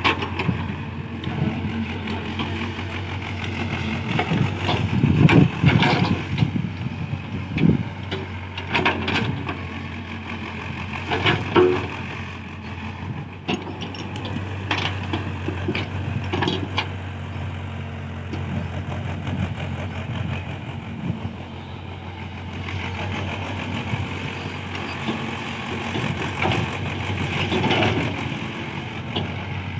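Diesel engine of a Hyundai 80 SMART excavator running steadily, with scattered clunks and knocks while it works. The loudest knocks come about five seconds in.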